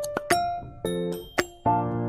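Background music: a keyboard playing chords that change about every half second, with a few sharp ticks.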